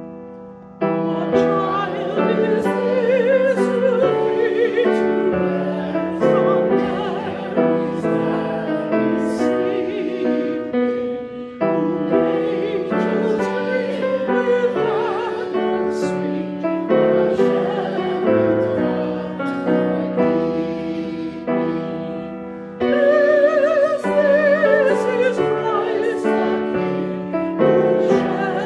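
A congregation singing with piano accompaniment. The piano plays alone at first, and the voices come in about a second in.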